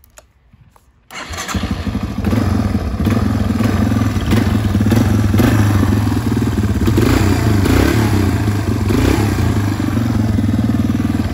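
A Yamaha TTR-225 dirt bike's air-cooled single-cylinder four-stroke engine starts about a second in and runs, its pitch rising and falling a few times in the middle. It is running again after its carburettor was cleaned and its stale gas drained.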